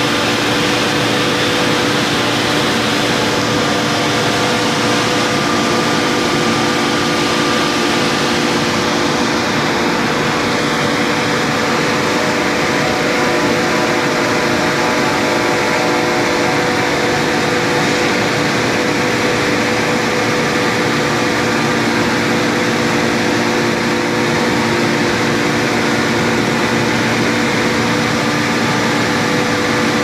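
Dual-fuel 50-ton bogie hearth forging furnace firing: a loud, steady roar of burners and combustion-air blowers, with a constant hum of several tones.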